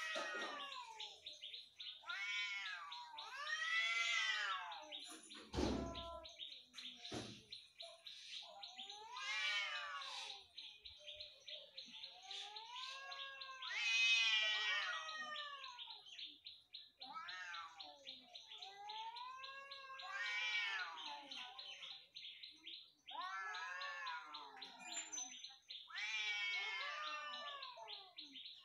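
Two domestic cats caterwauling at each other in a fight standoff: long drawn-out yowls, each rising then falling in pitch, come every second or two. Beneath them runs a constant fast, high-pitched pulsing buzz, and there is one thump about six seconds in.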